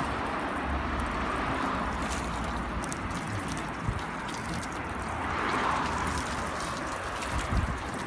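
A garden hose jet of water splashing steadily onto a car bonnet, rinsing off clay-bar residue, with a low rumble underneath.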